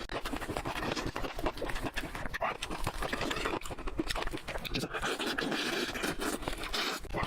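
Close-miked eating sounds: chewing, lip-smacking and wet mouth noises in quick, irregular succession.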